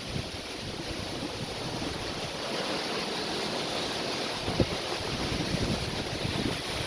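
Strong wind blowing, buffeting the microphone with an irregular low rumble, and a sharper thump about four and a half seconds in.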